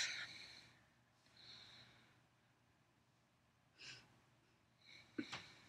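Near silence with a few soft breaths or sighs, after a louder sound fades out at the very start.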